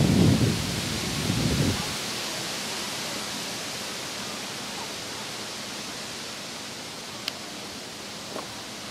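Steady hiss of wind outdoors, with low wind rumble buffeting the microphone for the first two seconds before it settles.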